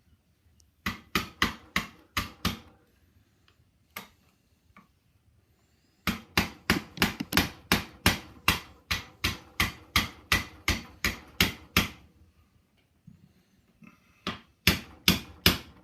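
Hammer striking to drive a pin into a Stevens Model 820 shotgun's action, in three runs of sharp, ringing taps: a short run of about six, a long steady run at about three strikes a second, and a last run of about five.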